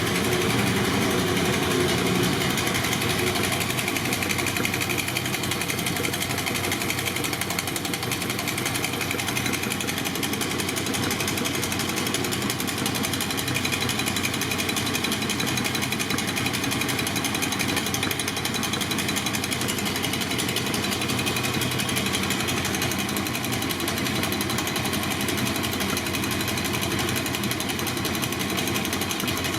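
BMW R60/7's air-cooled flat-twin engine running steadily, a little louder for the first couple of seconds and then even.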